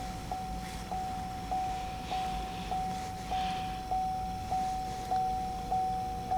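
Vehicle warning chime sounding over and over, a steady tone restruck about every 0.6 seconds and fading a little between strikes. A second, lower tone joins about five seconds in.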